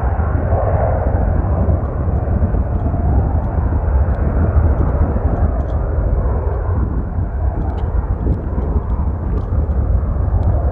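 Jet noise from a Boeing 747 freighter's four engines as it rolls along the runway after landing: a steady, loud rush with a heavy low rumble underneath.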